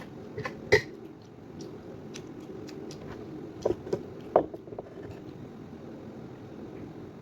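A few light clinks and knocks of dishes and kitchen utensils, two near the start and three close together around the middle, over a steady low hum.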